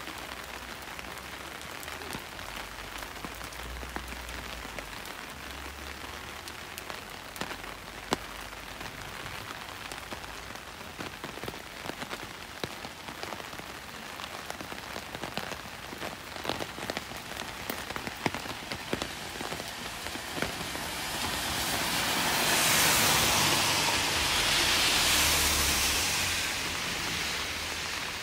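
Steady rain with many sharp drop ticks. Near the end a louder hiss swells up and fades away over several seconds.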